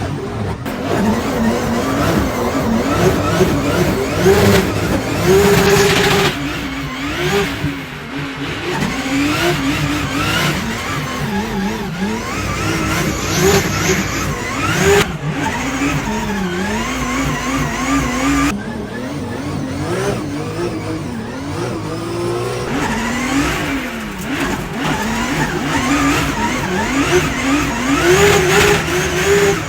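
Drift car engines revving hard, the pitch climbing and dropping again and again as the cars are driven around the track. The sound changes abruptly twice, about six seconds in and about two-thirds of the way through.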